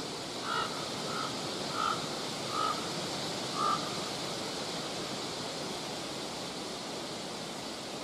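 Steady wind noise, with a bird giving five short calls in the first four seconds.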